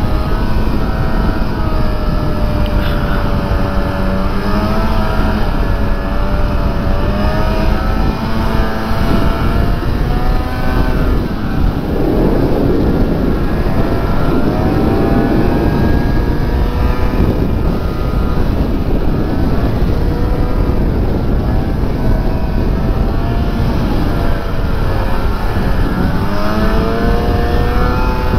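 Snowmobile engine running under way, its note rising and falling with the throttle over a constant rush of noise, and climbing near the end.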